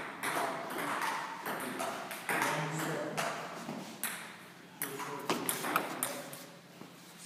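Table tennis ball clicking off bats and table during rallies, with sharp ticks throughout and a quick run of them about five seconds in.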